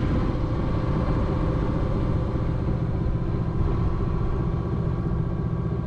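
Sailboat's engine running steadily under way while motor sailing, at about 2,300 rpm, a constant drone with a steady hiss over it.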